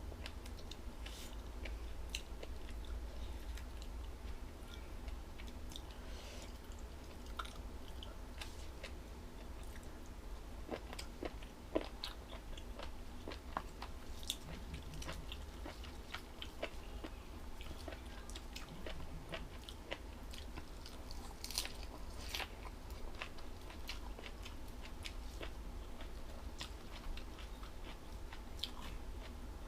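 A person chewing and biting crunchy food close to the microphone: scattered small crunches and wet clicks over a low steady hum.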